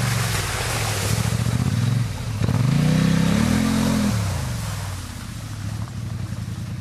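Polaris Sportsman 850 XP quad's twin-cylinder engine revving as it ploughs through a mud bog. The revs sag about two seconds in, climb sharply and hold, then fall away after about four seconds as the engine note fades.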